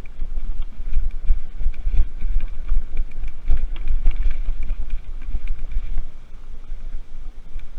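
Wind buffeting the microphone of a mountain bike's onboard camera, with irregular rattles and knocks as the bike rides over a rough forest singletrack.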